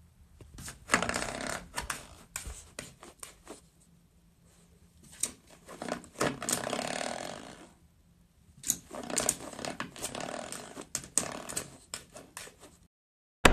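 A coiled-spring door stop being flicked by a puppy's paw and mouth, twanging with a buzzing rattle and sharp clicks as it springs back. It comes in three spells of a couple of seconds each.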